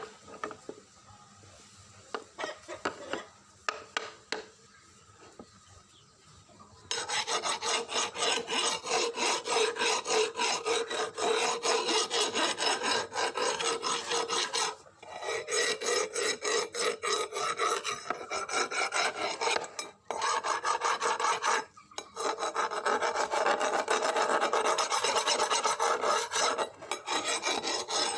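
A few light knocks and handling sounds, then about seven seconds in, a steady run of fast rasping strokes, like a file or abrasive being worked back and forth over a surface, with a few short pauses.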